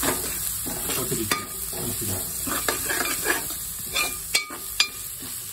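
A metal ladle scrapes and clinks against a metal pot as onions and masala are stirred, frying and sizzling in oil. Several sharper metallic knocks come about four to five seconds in.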